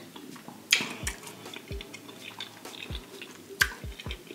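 Wet clicks, smacks and drips of lobster tail meat being dipped in butter sauce and lifted out, with the sharpest wet click about a second in and another near the end.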